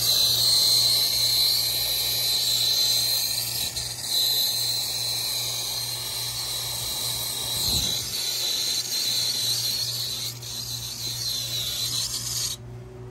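Brazing torch flame hissing steadily while a copper joint on a liquid-line filter drier is heated and solder is fed in. The flame cuts off suddenly near the end.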